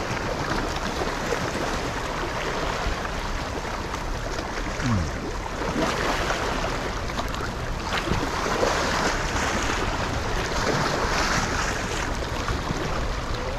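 Small waves washing and splashing over sandstone rock ledges at the water's edge, a steady sound without any clear rhythm.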